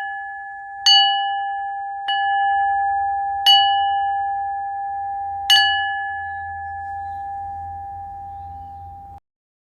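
Singing bowl struck four times, a second or two apart, ringing on one steady tone with higher overtones that slowly fades between strikes. The ringing cuts off suddenly near the end.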